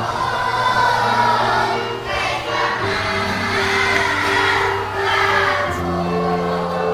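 A song with a group of voices singing together over held bass notes, the bass changing chord about every three seconds.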